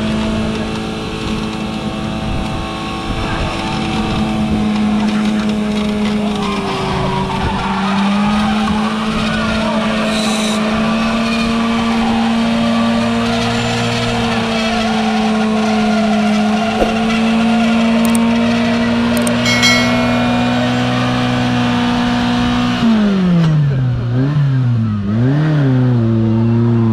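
Engine of an off-road 4x4 held at high, steady revs as it climbs a muddy slope, with one brief dip in revs. Near the end the revs drop and are blipped up and down several times.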